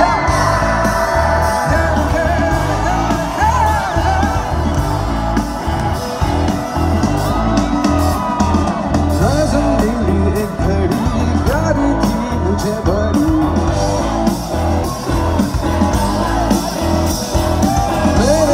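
Live band playing loudly through a PA, with a male singer over drums, bass and guitar. The crowd whoops and shouts along.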